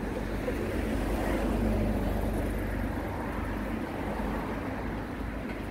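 Road traffic going by on a city street: a steady rumble that grows a little louder about a second and a half in, then eases off.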